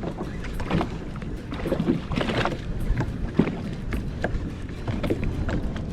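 Small waves slapping against the hull of a drifting jet ski, in irregular splashes every half second or so, over a steady low rumble of wind on the microphone.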